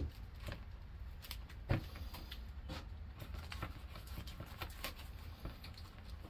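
A resin brush dabbing chopped strand fiberglass mat down into wet vinyl ester resin: a run of soft, irregular taps and clicks, with one louder knock a little under two seconds in, over a low steady hum.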